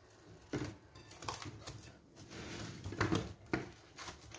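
Plastic cling film crinkling and rustling as hands stretch and press it over a glass mixing bowl, in a string of short, irregular crackles.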